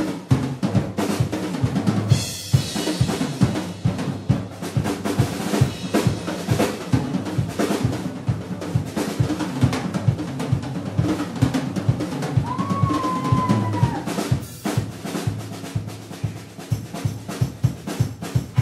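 Drum kit solo: fast rolls on snare and toms over bass drum, with cymbal crashes. A brief wavering high tone sounds about two-thirds of the way through.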